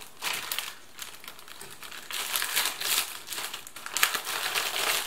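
Clear plastic outer bag crinkling as it is pulled off an MRE pouch, in irregular crackles that grow louder about two seconds in.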